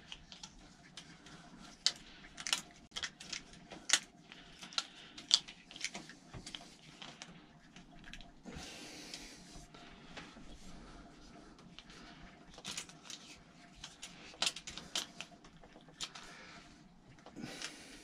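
Small metal clicks and taps at irregular intervals as a bolt is screwed into a bicycle frame's rack mount, with a brief rustle about halfway through.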